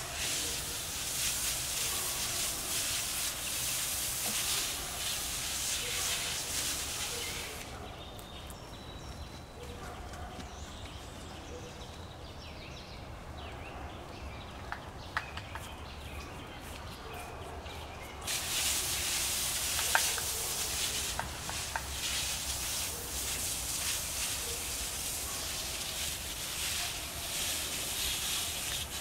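Garden spray wand hissing steadily as it sprays apple trees, stopping for about ten seconds in the middle and starting again.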